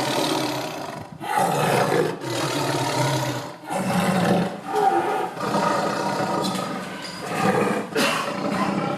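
Tiger roaring and growling in a run of rough calls, each one to two seconds long, with short breaks between.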